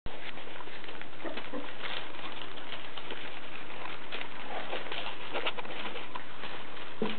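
Four-week-old Havanese puppies moving about on newspaper, the paper rustling and crackling under their paws. There are a few short, soft puppy grunts, about a second and a half in and again near the end.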